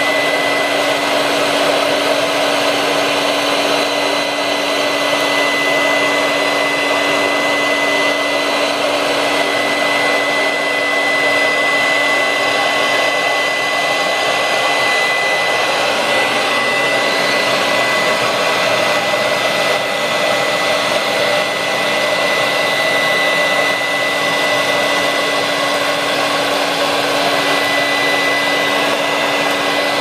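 Vorwerk 250 W dirty-air vacuum cleaner, its fan sitting right behind the nozzle, running steadily on a Miele Electro Comfort power nozzle with the brush turned off. A steady high whine rides over the rush of air.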